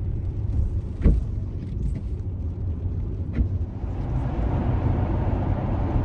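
Steady low rumble, with a sharp knock about a second in and a fainter one a couple of seconds later.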